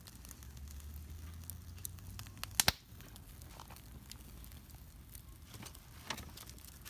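Wood campfire burning hot, the wood crackling with scattered small pops over a low rumble, and a sharp double pop about two and a half seconds in.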